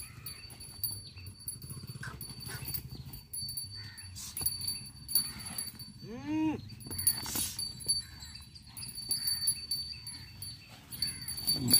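Irregular scuffing and rustling as a tethered young bull lunges and turns on dry dirt, with one pitched call that rises and falls about six seconds in.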